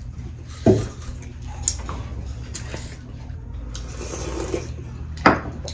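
Eating sounds: hands working dhido and soup on steel plates, with a slurp from a soup bowl past the middle and two sharp knocks of dishes, about a second in and near the end, over a low steady hum.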